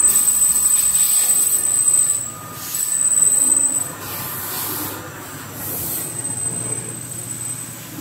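CNC lathe running while machining metal cable gland parts, with a high, steady squealing whine for about the first two seconds and again briefly around three seconds in, over a hiss. It runs quieter after about four seconds.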